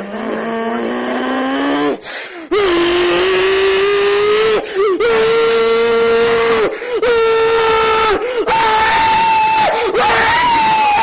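A man screaming in a string of about six long held cries with short breaks between them. The first cry slides upward, and the last two, from about eight and a half seconds in, are pitched much higher.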